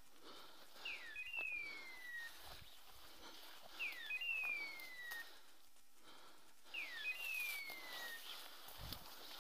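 Hunting dog's beeper collar sounding a hawk-like electronic screech that slides down in pitch, three identical calls about three seconds apart: the collar's point signal, meaning the dog has stopped on point.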